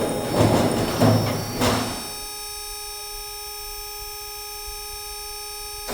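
Flush panel forming machine giving a steady electric hum made of several fixed tones. For about the first two seconds the hum sits under loud noisy clatter with three sharper hits.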